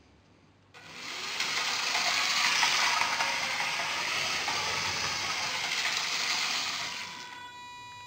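LEGO 9V train motor running the locomotive around plastic track, a steady mechanical whir that starts about a second in and drops in level near the end.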